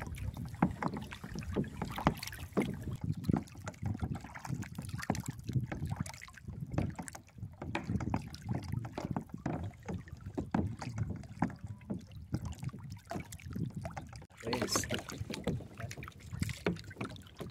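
Small waves lapping and slapping irregularly against a kayak hull, over a low rumble of wind buffeting the microphone, with a brief louder rush about fourteen seconds in.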